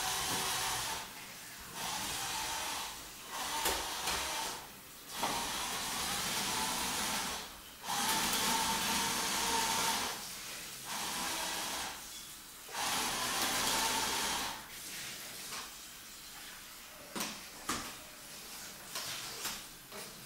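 Electric drive motors and gearboxes of a Bruder toy bulldozer converted to radio control, whirring in runs of a second or a few seconds with short pauses between as it is driven in stops and starts. A few sharp clicks come near the end.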